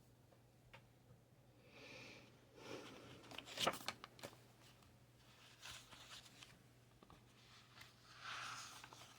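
Paper and sticker sheets being handled: soft scattered rustles, with a cluster of small clicks and taps about three to four seconds in.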